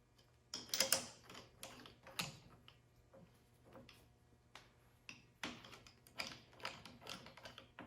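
Metal clicking and clinking of a lathe scroll chuck's jaws being handled and fitted: irregular clicks in two clusters, one early and one in the last few seconds.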